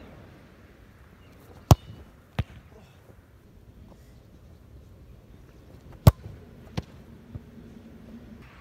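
Two sharp thuds of a football being struck, about four seconds apart, each followed under a second later by a softer thud.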